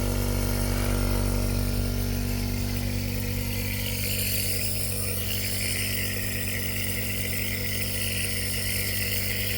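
Compressor nebulizer running: a steady motor hum with a hiss of air and mist above it, the hiss growing clearer about four seconds in.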